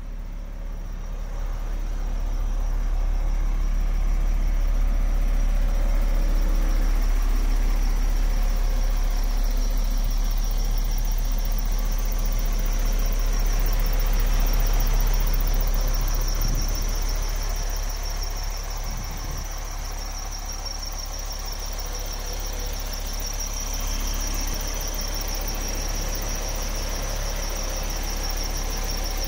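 MAN TGX 26.400 truck's inline six-cylinder diesel engine idling steadily, with a steady high-pitched whine above the low engine note. It gets louder about two seconds in.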